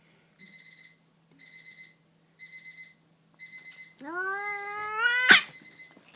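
Angry house cat letting out a drawn-out yowl about four seconds in, rising in pitch and ending in a sharp hiss. This is an agitated, aggressive cat. Before the yowl come four short, faint, even high tones about once a second.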